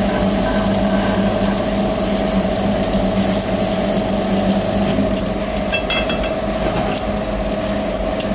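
Thread rolling machine running with a steady hum as its two grooved dies roll a thread into a steel rod by cold forming. A cluster of sharp metallic ticks comes about five to seven seconds in.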